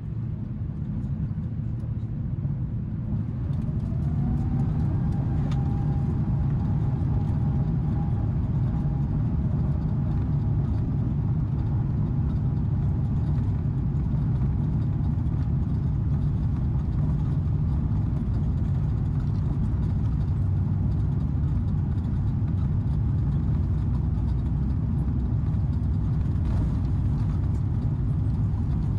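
Airbus A350's Rolls-Royce Trent XWB engines heard from inside the cabin, spooling up with a rising whine over the first few seconds that settles into a steady tone over a loud, even rumble: takeoff thrust and the roll down the runway.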